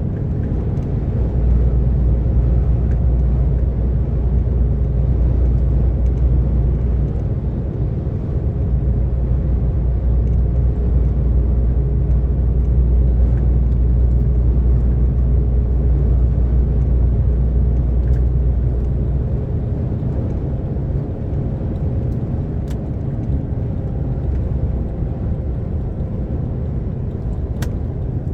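DAF XF 460 lorry's six-cylinder diesel engine running steadily at motorway cruise, together with road and tyre rumble. The deepest drone drops away about two-thirds of the way through.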